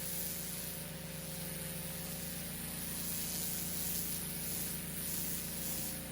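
Pressure washer running steadily, its motor humming with a fast pulse under the hiss of the high-pressure water spray on block paving.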